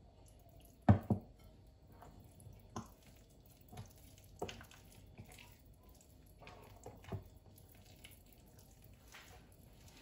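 Waffle batter being stirred by hand in a glass bowl: soft wet squishing, with several sharp knocks of the utensil or bowl against the glass, the loudest a double knock about a second in.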